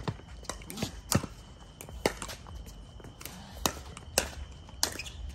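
Pickleball paddles striking a hard plastic pickleball in a rally: sharp pops at uneven intervals, about five clear hits with softer taps between them.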